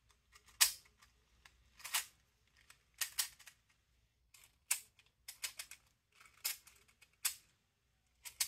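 3D-printed plastic seven-segment mechanical counter clicking as its cam stack is turned by hand, about ten sharp clicks spread unevenly, some in quick pairs. It is a function test of the segments under their rubber-band spring tension.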